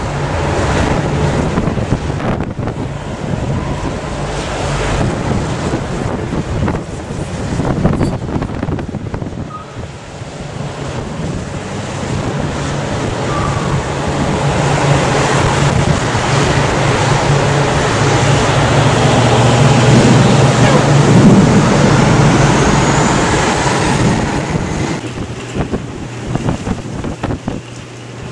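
Gusty wind of an approaching monsoon storm buffeting the microphone, building to its loudest about twenty seconds in and easing near the end.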